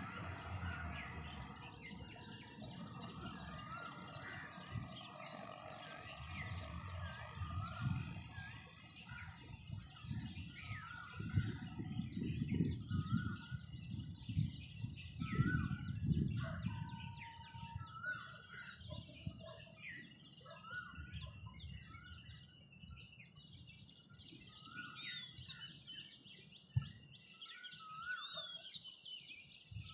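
Many small birds chirping and twittering in a morning chorus, over a low rumbling noise that swells and fades around the middle.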